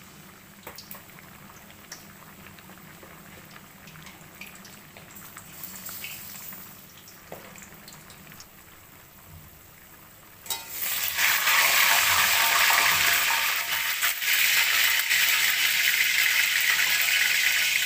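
Batter-coated tempeh slices frying in hot oil in a wok: a low sizzle with a few small pops, which about ten seconds in suddenly turns into a loud, dense sizzle that keeps going until just before the end.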